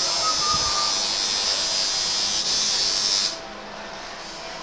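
Tattoo machine buzzing steadily while tattooing, stopping abruptly a little over three seconds in.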